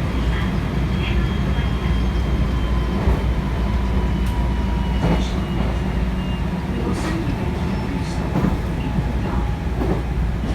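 Inside a JR West 223 series 0-subseries electric train car under way: a steady low rumble of wheels on rail, with scattered short clicks. A faint high whine fades out about halfway through.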